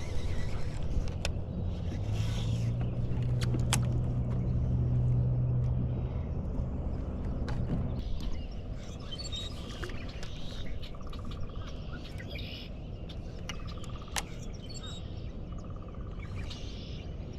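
Small birds chirping in short repeated calls over a quiet outdoor background, with a low steady motor hum that stops about eight seconds in. A few sharp clicks occur here and there.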